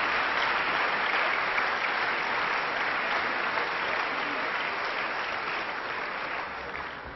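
A large parliamentary audience applauding: dense, sustained clapping that thins out and fades toward the end.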